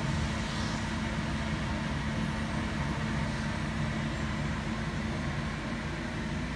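Steady hum and hiss of a running fan, with a low steady tone under it.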